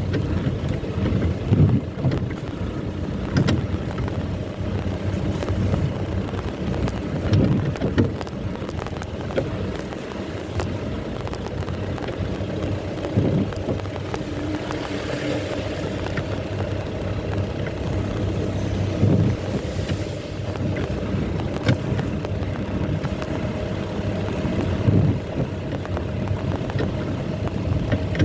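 Off-road safari vehicle driving over a rough track: steady engine and running noise, with a knock or jolt every few seconds and some wind on the microphone.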